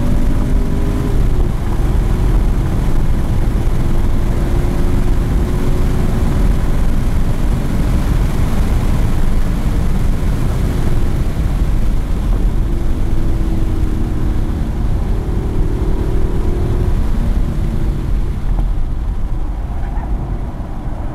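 Race car engine at high revs under full throttle, heard from inside the car with road noise, its pitch rising as it accelerates down a straight. Near the end it eases off as the car brakes for a corner.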